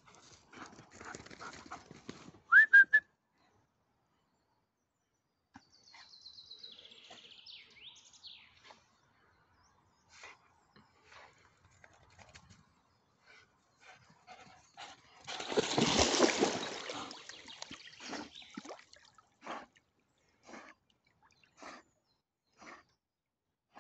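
A short, loud rising whistle-like call about two and a half seconds in, then a run of high falling chirps. Later comes a long rush of water splashing, and after it a string of short splashes as a Saarloos wolfdog swims.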